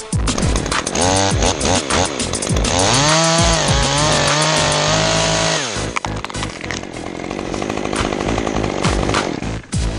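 A chainsaw revs up and down, then holds at high speed for a couple of seconds while cutting, and drops off about halfway through. Music with a steady electronic beat runs underneath.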